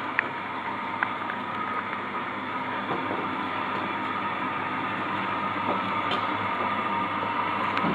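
Domestic laundry machines running, an Indesit washing machine and a Beko tumble dryer: a steady motor hum with a constant high whine, and a couple of faint clicks near the start.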